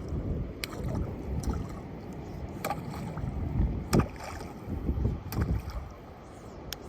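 Gusty wind buffeting the microphone with an uneven low rumble, and a handful of irregular sharp clicks and knocks over it; the strongest knock comes about four seconds in.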